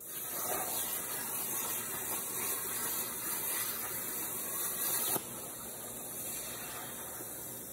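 CNC plasma cutter torch hissing as it cuts steel plate. About five seconds in the cutting sound stops abruptly and a quieter steady hiss carries on.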